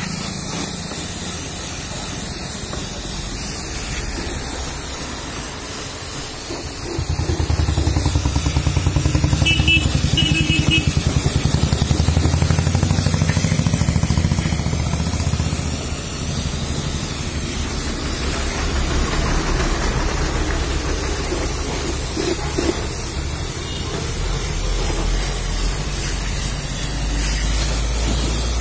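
Pressure washer running, its water jet hissing against the car's body and the muddy ground, over the steady hum of the washer's pump. The hum grows louder about seven seconds in and eases back about sixteen seconds in.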